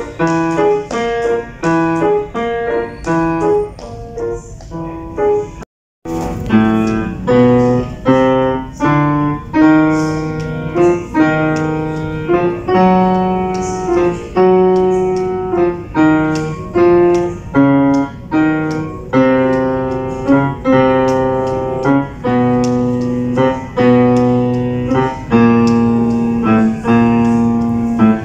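Steinway grand piano being played: a melody over a lower accompaniment, notes following at an even, moderate pace and ringing into one another. About six seconds in the sound cuts out completely for an instant, then the playing resumes.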